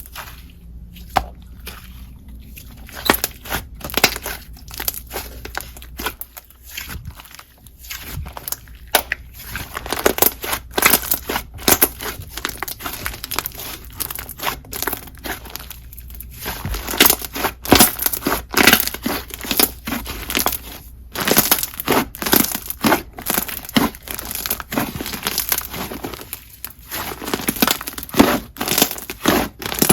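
Slime being squished, stretched and pressed by hand, giving dense, irregular sticky clicks, pops and crackles.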